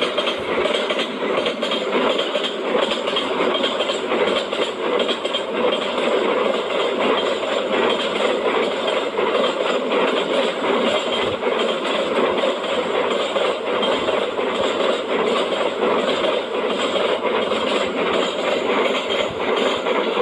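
Steady mechanical clattering noise that cuts off suddenly at the end.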